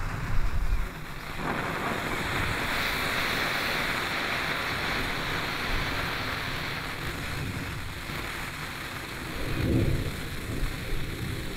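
Perro Cagón 'pooping dog' snake firework (a Cat. F1 serpiente) burning with a steady fizzing hiss. The hiss starts about a second and a half in, as the pellet catches and pushes out its snake of ash. Low rumbling comes at the start and swells again near the end.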